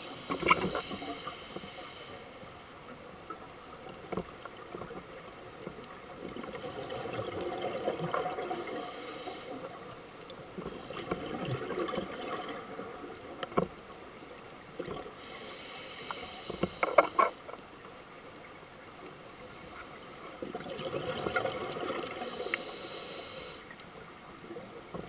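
Scuba breathing heard underwater: a regulator hisses on each inhale, about every seven seconds, and exhaled bubbles gurgle between the breaths. A few sharp clicks are mixed in.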